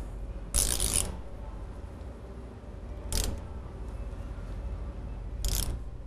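Tubing cutter being turned around a metal air-conditioning line to cut it: three short scraping passes, the first about half a second in and the longest, another about three seconds in, and the last near the end.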